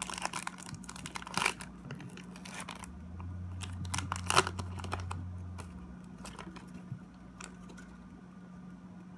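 Foil Pokémon TCG booster pack wrapper being torn open and crinkled, with a few sharp rips in the first half and quieter rustling after, over a steady low hum.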